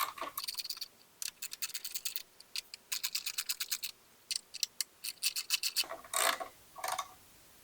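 Ratchet wrench clicking in quick runs of strokes with short pauses between, as mounting bolts are tightened down. There are two louder scraping sounds near the end.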